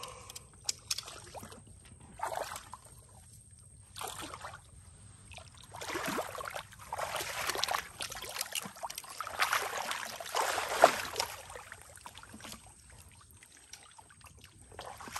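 Shallow muddy water sloshing and splashing as a person moves and gets up in it. The noisy surges come mostly in the middle of the stretch, with one sharper splash near the end of them.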